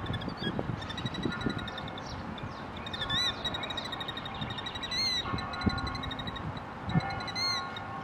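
Birds calling: three short, high, rising-and-falling notes about two seconds apart, among fainter chirping.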